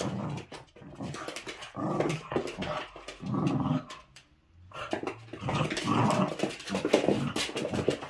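Two small poodle-type dogs play-growling and grumbling in short bursts as they wrestle, with sharp clicks mixed in, and a brief pause about four seconds in.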